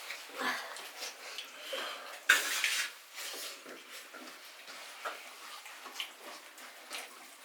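Dishes clinking and scraping during a meal, in small irregular knocks, with one louder scrape of about half a second a little over two seconds in.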